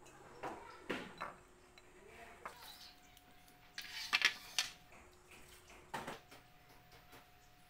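Ceramic bowl and plate knocking and clinking on a table as crab is handled and broth is poured over rice: a few scattered faint knocks, with the loudest cluster about four seconds in.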